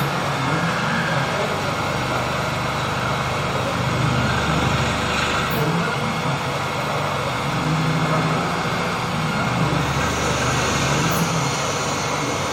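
Fanuc-controlled CNC machine tool running while machining a transmission gear wheel: a steady mechanical noise with a low hum that steps up and down in pitch as the motors change speed.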